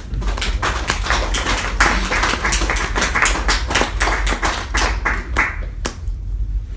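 Audience applauding: a dense patter of many hands clapping that thins out and stops about six seconds in.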